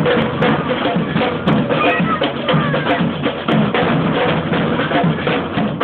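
A samba percussion band drumming a samba-reggae rhythm. Deep surdo bass drums beat a steady pattern under crisp snare and repinique strokes.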